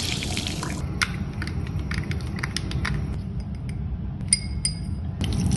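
Tap water running briefly over a makeup sponge, then makeup brushes clicking and tapping against a glass cup of soapy water, with two short ringing clinks about four seconds in.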